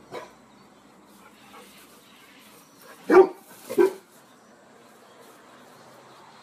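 A dog barking twice, about half a second apart, a little after three seconds in.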